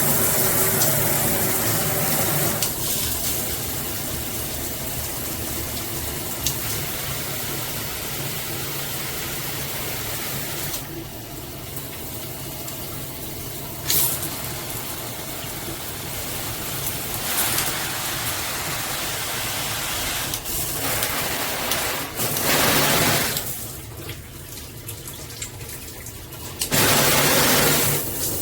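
Water spraying from a filtered shower head, a steady hiss whose sound changes abruptly several times as the spray shifts.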